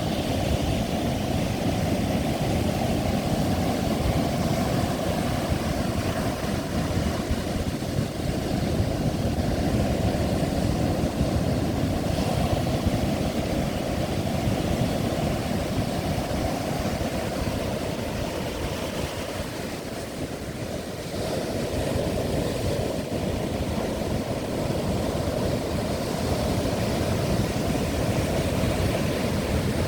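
Strong wind buffeting the microphone as a steady low rumble, over heavy ocean surf breaking. The wind eases briefly about twenty seconds in.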